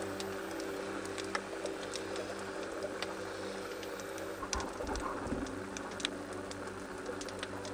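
Underwater sound picked up by the diver's camera: a steady low hum with scattered sharp clicks and crackles, and a short low rumble about halfway through.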